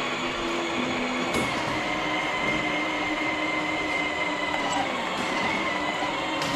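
Battery-powered kids' ride-on car driving: a steady whine from its small electric motors and plastic gearboxes, over the rumble of hard plastic wheels rolling.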